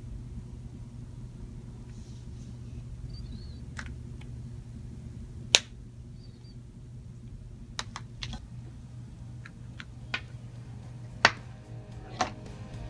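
Scattered sharp clicks and taps, about seven in all, as ink pens and a white correction pen are handled and tapped against the drawing paper. The loudest come about halfway through and a second before the end, over a steady low hum.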